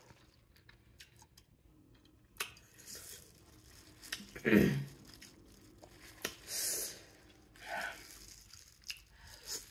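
Disposable plastic gloves crinkling and rustling as hands break up seasoned corn and shrimp in a bowl of seafood-boil sauce, with wet squishing noises. There are scattered short bursts, the loudest about halfway through.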